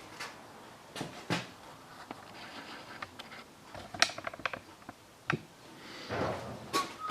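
Hand tools being handled during spark plug work on a car engine: scattered metallic clicks and knocks, with a short run of rapid clicks about four seconds in.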